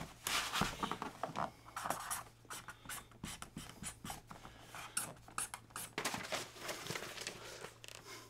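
Pen scratching on paper, writing in a notebook in a run of short, irregular strokes.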